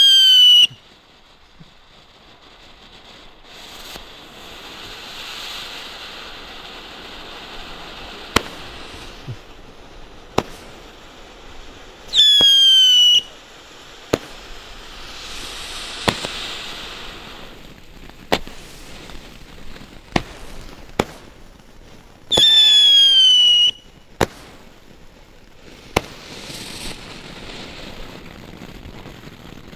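Weco Pyrosinfonie firework battery firing. Three loud whistles, each about a second long and sliding slightly down in pitch, come about twelve seconds apart. Between them, fountain effects hiss and single sharp bangs crack at irregular intervals.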